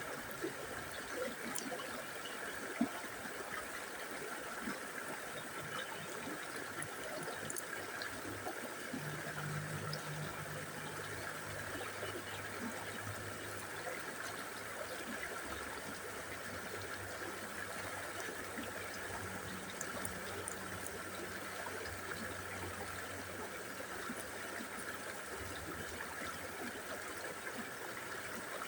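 River water flowing steadily over rocks, a constant rushing and babbling with small splashes. A faint low hum sits underneath through the middle of the stretch.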